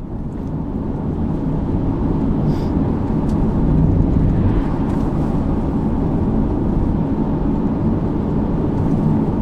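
Steady low rumble of road and engine noise inside a moving car, fading in over the first couple of seconds.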